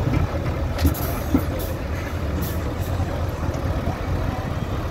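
Off-road trial truck's diesel engine rumbling steadily as the truck crawls forward against a tree, with a few short sharp noises in the first three seconds.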